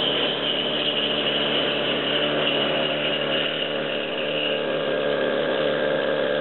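A handheld power tool running steadily on the steel hull, a continuous mechanical noise with a steady high whine.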